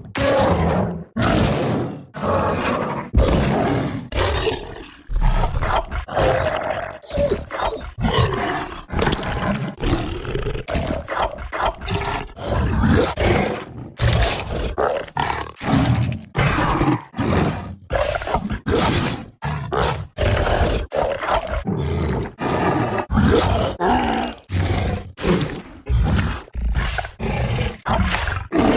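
Monster roar sound effects: a rapid string of short, harsh roars and growls, cut one after another with brief gaps between them.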